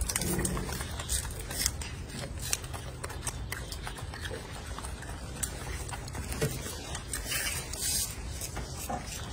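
Golden snub-nosed monkeys tearing and handling crisp lettuce and leafy greens: scattered short crackles and rustles of leaves over a low background.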